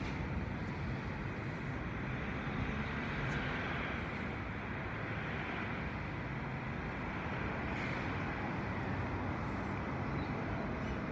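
New York City subway train pulling into an elevated station on the far track and slowing to a stop: a steady rumble of wheels and motors.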